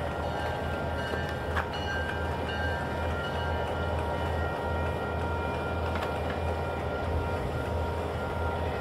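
Diesel locomotive running with a steady low rumble, joined by faint, steady high-pitched tones, and a single click about a second and a half in.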